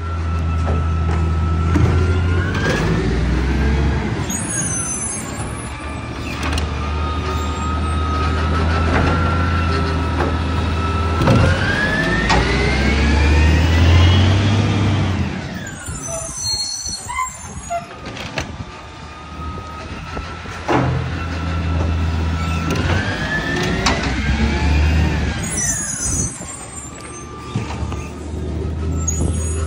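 Diesel side-loader garbage truck working bins: a steady low engine rumble, with the engine and hydraulics rising in pitch three times as the automated arm lifts and tips bins. Short hisses come in between.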